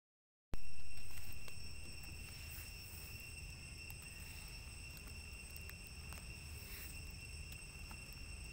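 Insects buzzing steadily in one high, unbroken tone over a low rumble, with a few faint ticks of leaf litter.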